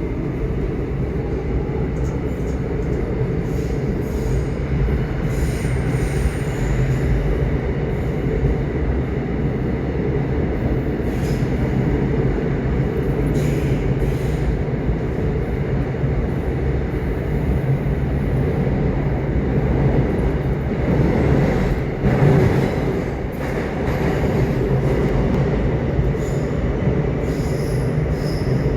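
Subway train running, a steady loud rumble of wheels on track with occasional short clicks and a brief swell about 21 seconds in.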